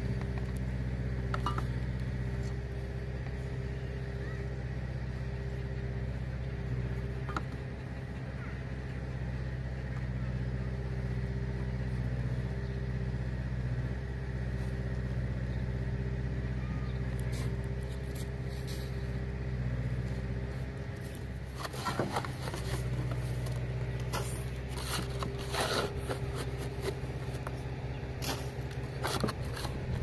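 An engine running at a steady, even speed throughout, a low drone. From about two-thirds of the way in, irregular scraping and clicking sounds join it.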